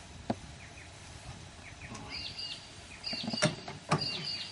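Faint bird chirps with a few sharp clicks and knocks of metal hand tools being picked up and handled; the two loudest knocks come about three and a half and four seconds in.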